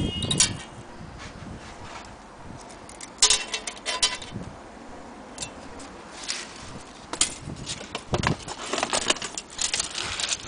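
Handling noise: scattered sharp clicks and short bursts of light metallic rattling, the busiest about three seconds in and again near the end.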